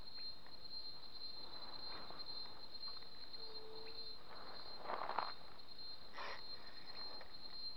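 Insects trilling in a steady high-pitched drone, with a few brief rustles about five and six seconds in and a short low note about three and a half seconds in.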